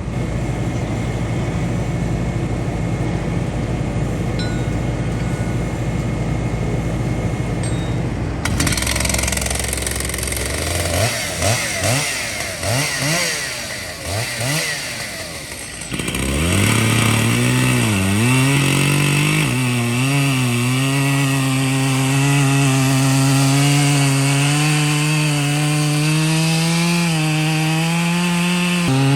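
A large chainsaw is revved up and down in short bursts, then settles into a loud, steady cut through a big elm log under load, its pitch dipping slightly now and then. For the first several seconds a steady low engine hum runs before it cuts off abruptly.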